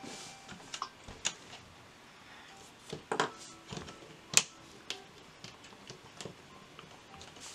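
Scattered sharp clicks and taps of plastic Lego bricks being handled and pressed together on a tabletop, the loudest a single snap about four seconds in.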